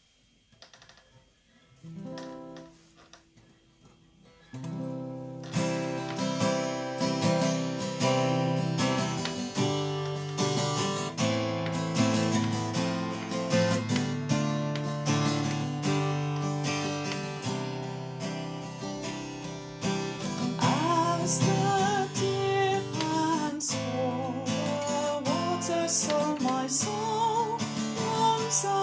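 Acoustic guitar strummed as a hymn accompaniment. A single chord sounds about two seconds in, then steady strumming begins about four and a half seconds in. A woman's voice starts singing the hymn over the guitar about twenty seconds in.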